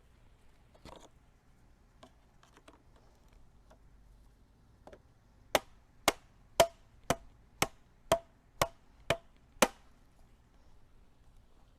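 A hammer driving a raised garden bed stacking stake into the ground: a few light taps, then nine sharp, evenly paced blows about two a second, each with a short ring.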